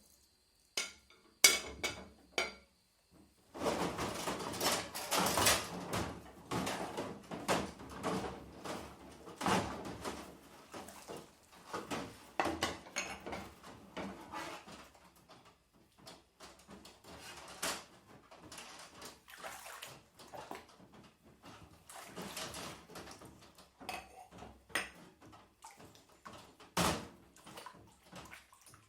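Washing up by hand: dishes and cutlery clinking and knocking together in water, with splashing. A few separate clinks at first, then continuous clatter that eases off about halfway through, with one sharp knock near the end.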